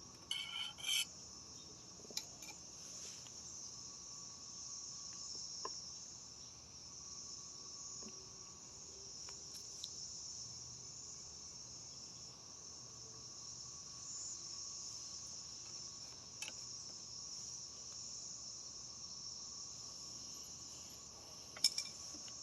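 Steady high-pitched insect chorus, with a few faint clicks and taps here and there.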